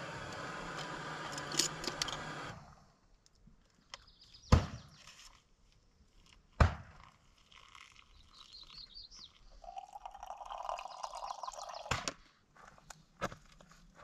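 A steady hum and hiss that cuts off suddenly early on, then two sharp knocks of cookware. Hot water is poured from a camp pot into a paper-filtered pour-over coffee dripper for about four seconds, ending with a clunk and a click.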